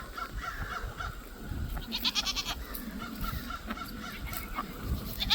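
A young farm animal bleating once, about two seconds in: a short, wavering call. Small high peeps repeat faintly throughout.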